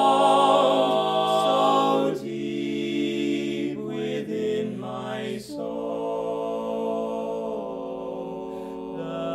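Male a cappella quartet singing in close four-part barbershop harmony, holding long chords that shift a few times.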